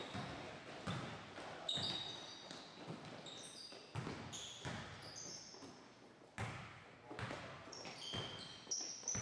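Basketball bouncing on a hardwood gym floor at irregular intervals, mixed with short high-pitched sneaker squeaks as players move on the court.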